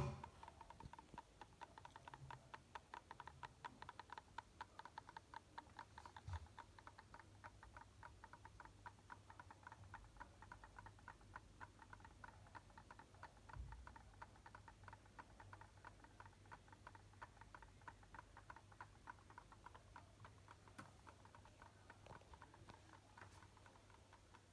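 Faint, rapid, regular ticking, several ticks a second, coming from inside a boxed IKEA Hasvik wardrobe flat-pack, with one louder click at the start.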